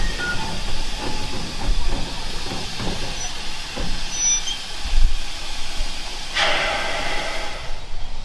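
Steam locomotive standing in a station, steam hissing steadily, with a louder burst of steam about six seconds in.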